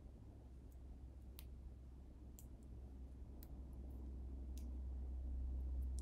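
Faint, sharp clicks, about one a second, over a low hum that grows louder toward the end.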